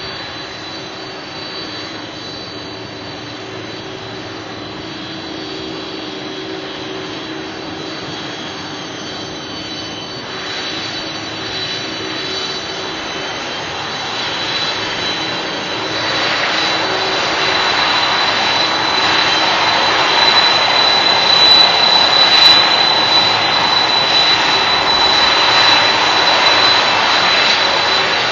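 Boeing 747-400's four jet engines running at taxi power as the jumbo jet taxis and turns. The jet noise is steady, with a high whine, and grows louder from about halfway through.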